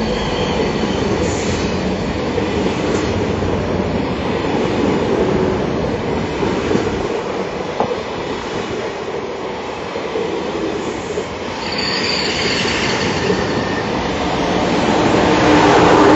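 TGV high-speed train running on the rails: a steady rumble and hiss with faint high-pitched tones that come and go, growing louder near the end.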